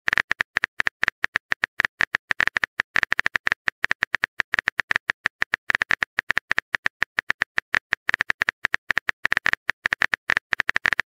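Keyboard-typing sound effect of a texting app: a fast, uneven run of short clicks, about ten a second, while a message is being typed.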